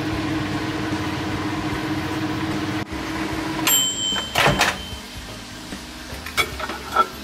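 Microwave oven running with a steady hum, which stops about three and a half seconds in as its mechanical timer bell dings. A loud clack follows as the door is opened, then a couple of light clinks as the plate is taken off the turntable.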